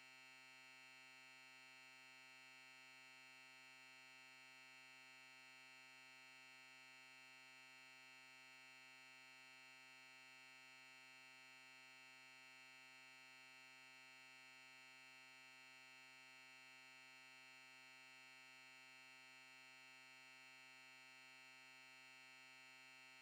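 Faint, perfectly steady electronic drone: one unchanging buzzy tone with many overtones, which cuts off abruptly at the very end.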